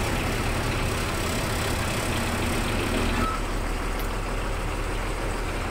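A vehicle engine idling with a steady low hum and rumble.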